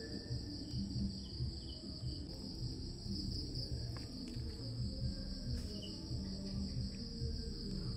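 Steady, unbroken high-pitched chirring of insects such as crickets, over soft low background music, with a couple of faint clicks.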